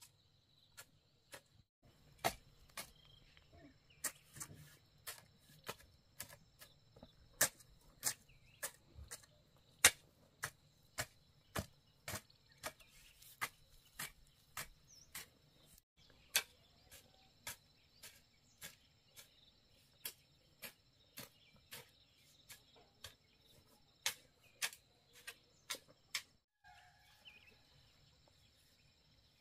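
Hoe blade striking loose garden soil in steady chopping strokes, a sharp hit about twice a second, stopping near the end.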